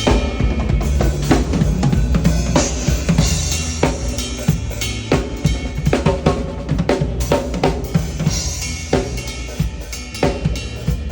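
Live band at a sound check, with the drum kit loudest: quick bass drum and snare strokes over steady low bass notes.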